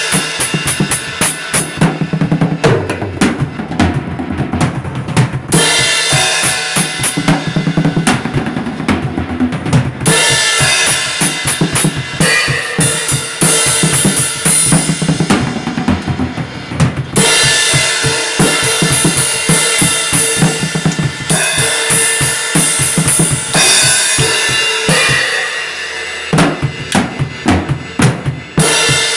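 Music built on a drum kit: a busy pattern of kick and snare hits under steady pitched instruments.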